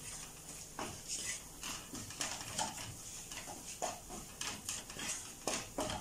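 Wooden spoon scraping and stirring a thick spice masala around a ceramic-coated frying pan, in irregular short strokes, frying the chilli, turmeric and coriander powders until their raw smell is gone.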